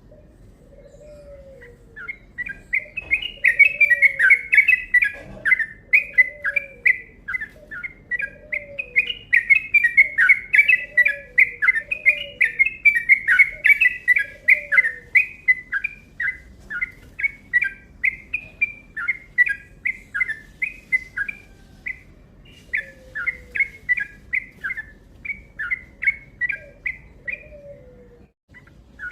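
Trucukan (yellow-vented bulbul) singing a long, fast run of chirping notes, the rapid 'ropel' song of a bird in full song, starting about two seconds in with brief pauses later on. A lower, falling call repeats about once a second underneath.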